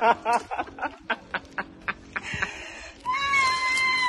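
A woman laughing in quick bursts that thin out into short breathy gasps, then a long high-pitched wail, held for about a second near the end and dropping in pitch as it breaks off.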